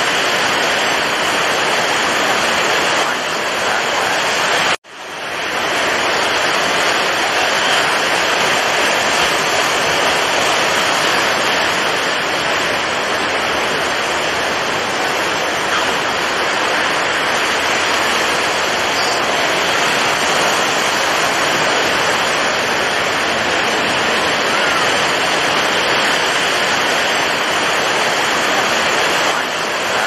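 Steady rushing roar of rough sea and breaking surf, with no separate wave crashes standing out. About five seconds in it cuts out for an instant and quickly fades back in.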